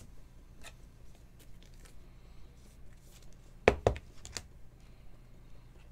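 Chrome-stock trading cards being handled and shuffled by hand, with soft slides and light clicks, then two sharp taps close together about three and a half seconds in. A low steady hum runs underneath.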